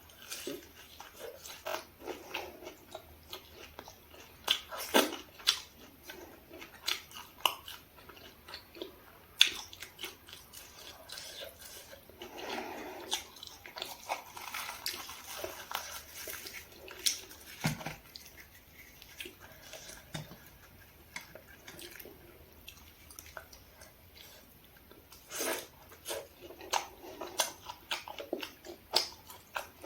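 Close-miked eating sounds: a person biting and chewing food, with many short wet mouth clicks scattered throughout and a few seconds of softer, denser noise around the middle.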